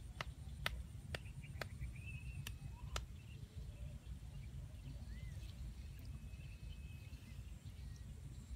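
Rural outdoor ambience: a steady low rumble, a string of sharp clicks about twice a second over the first three seconds, and faint high chirps.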